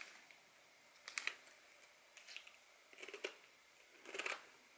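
Wavy potato chips crunching as they are bitten and chewed: a sharp crunch at the first bite, then about four softer crunches roughly a second apart.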